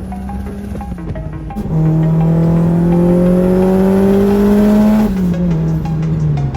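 A car engine accelerating hard, its pitch rising steadily for about three seconds and then dropping, over background music with a steady beat.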